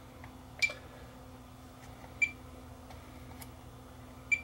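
Digital multimeter giving three short high-pitched beeps, about a second and a half apart, as its probes are touched to transistor leads during in-circuit diode testing. A faint steady hum lies underneath.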